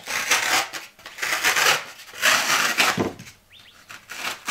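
A utility knife slitting a foam pool noodle lengthwise, in three long scratchy strokes of about a second each, then quieter for the last second or so.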